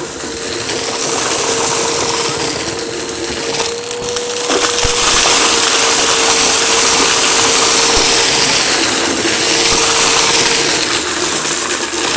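Eureka vacuum cleaner running, with a steady motor whine over the hiss of its airflow and a crackling crunch as debris is sucked up.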